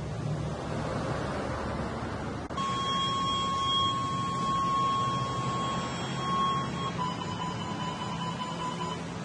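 Outdoor background noise. About two and a half seconds in, a steady, high electronic alert tone starts and holds about four seconds, then drops to a slightly lower tone for about two seconds.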